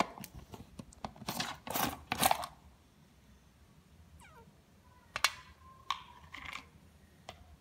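Plastic screw-top lid of a whey protein tub being twisted off and handled: a run of sharp scraping and clicking in the first two and a half seconds, then a few quieter clicks and a brief falling squeak.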